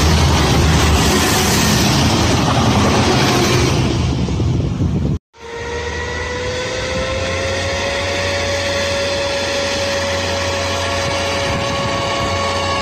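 A pair of SA136 diesel railcars passing at speed, a loud rush of wheel and engine noise with a deep rumble, cut off abruptly about five seconds in. Then an SA133 diesel railcar pulling away from a station as its engine and drive rise to a whine that climbs and then holds steady while it accelerates.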